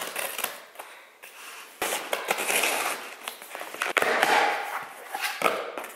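Scissors snipping through packing tape on a cardboard box, then the tape being ripped off and the cardboard flaps pulled open, a crackling, scratchy tearing from about two seconds in.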